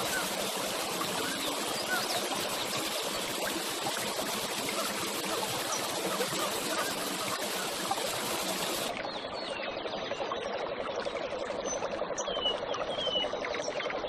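Hot-spring water gushing from a stone spout, a steady rushing noise. About nine seconds in it cuts off abruptly to a quieter backdrop with a few short bird chirps.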